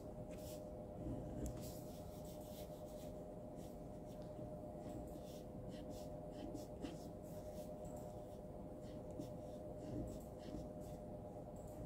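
Ballpoint pen scratching across paper in many short, quick strokes as lines are sketched, over a steady low hum.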